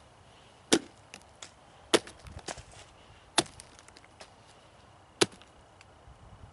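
A celt-style tomahawk, a steel head set into a wooden handle, chopping into a pumpkin on a log: four sharp chops spread over about four and a half seconds, with a few lighter knocks between them.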